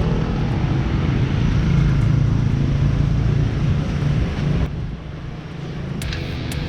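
Loud, steady vehicle engine noise with a low rumble, dropping off abruptly about two-thirds of the way through; sharp rhythmic clicks of music begin near the end.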